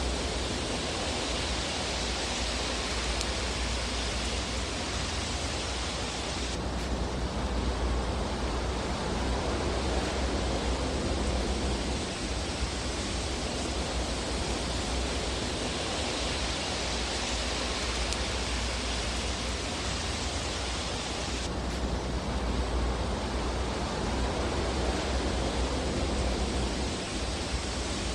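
Fireplace ambience heard as a steady, even rushing hiss with no distinct crackles. Twice its brighter upper part changes suddenly, about six seconds in and again about twenty-one seconds in, like the joins of a looped track.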